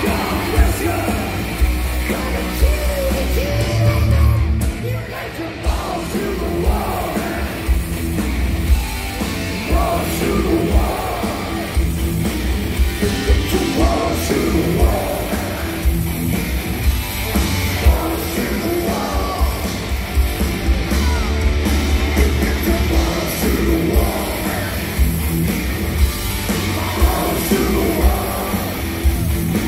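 Heavy metal band playing live through a PA, with distorted electric guitars, bass and drums under a sung lead vocal, recorded from within the audience.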